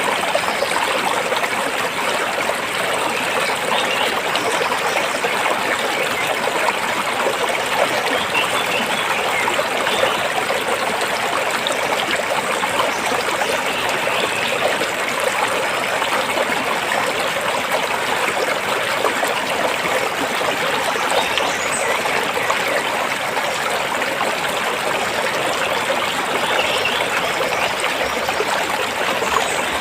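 Stream water flowing and splashing over rocks, a steady, even rush of sound.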